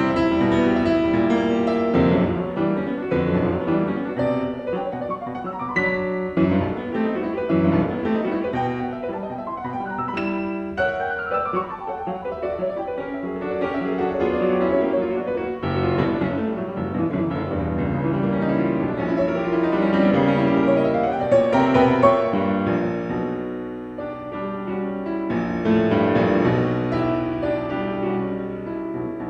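Background piano music, a melody with many changing notes and runs.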